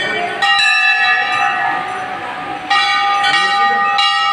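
Hindu temple bells ringing, struck again and again so that their long ringing tones overlap; the strikes come faster about two and a half seconds in. Voices of people murmur beneath them.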